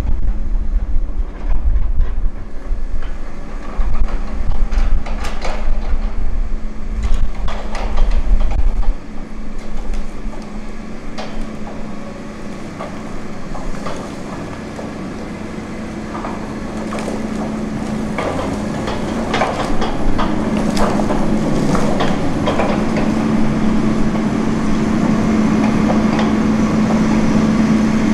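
Tigercat 234 knuckle-boom log loader at work: its diesel engine runs with a steady hum that grows louder over the second half as the boom is worked. Pine logs knock and clunk in the grapple and against the load. A heavy low rumble fills the first nine or so seconds.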